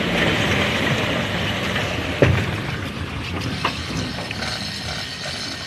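An engine running steadily, with two sharp knocks: one about two seconds in and another a second and a half later.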